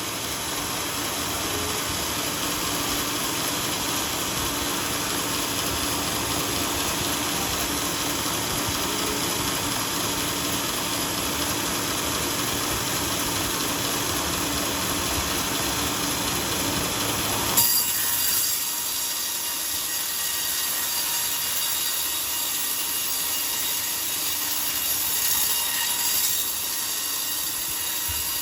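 Sawmill bandsaw machinery running through coconut timber with a dense, steady mechanical noise. A bit over halfway through there is a sharp knock, after which the low rumble drops away and a thinner, higher hiss carries on.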